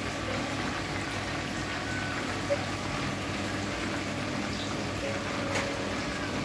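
Chicken pieces deep-frying in hot oil in a pan: a steady sizzle and bubbling.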